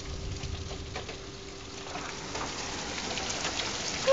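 Hail falling and pattering on surfaces: a dense spread of small, irregular ticks over a noisy hiss that slowly builds in loudness.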